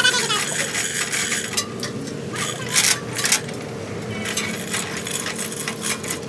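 Irregular sharp clinks and knocks, like hand tools handled on metal, over a steady low hum.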